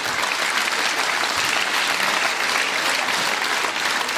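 Theatre audience applauding: many hands clapping in a dense, steady patter.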